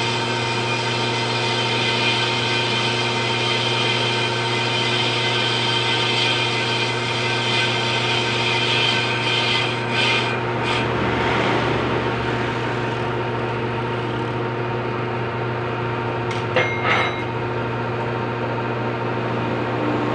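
Metal lathe running steadily while its cutting tool skims the clutch face of a car flywheel, a scraping cut over the machine's hum as the flywheel is refaced. The scraping stops about halfway through while the lathe keeps running, and there are two sharp clicks near the end.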